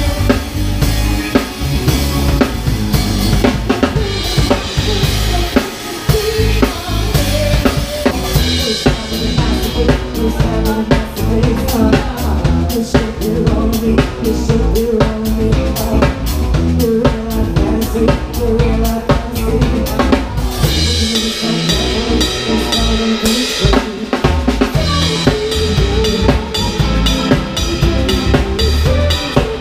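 A live band playing, heard from right behind the drum kit, so the drums lead the mix: kick drum, snare and cymbals struck hard, with the rest of the band beneath. The drum strokes come thickest in the middle stretch.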